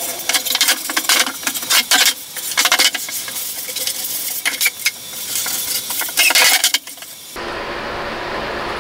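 A damp cloth rubbed back and forth over roughed-up plywood boards, a scratchy swishing in uneven strokes, wetting the wood to clear the dust and open the grain. About seven seconds in the scrubbing stops abruptly and a steady hiss takes over.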